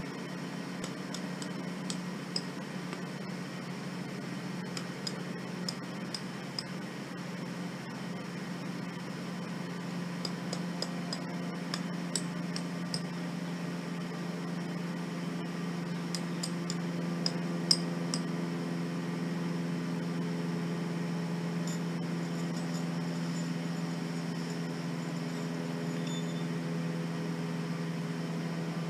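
A steady, low machine hum, growing slightly louder and fuller in the second half, with scattered faint clicks and ticks.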